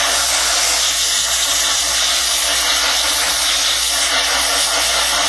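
Compressed air from an air-compressor blow gun hissing steadily as it blasts dust out of a computer power supply's rear fan.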